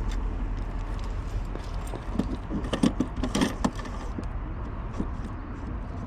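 Light clicking and jangling of small hard objects being handled, in a cluster about two to four seconds in, over a steady low rumble.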